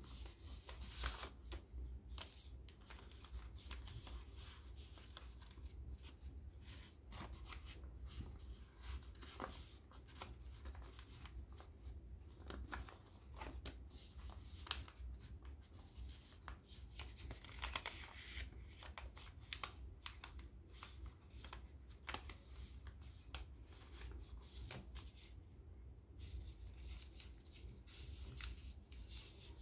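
A sheet of paper being folded and creased by hand: irregular crisp rustles and small snaps over a steady low hum.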